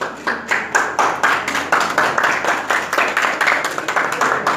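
A small group of people clapping, one pair of hands close and loud. It starts suddenly and keeps up as a fast, uneven run of claps.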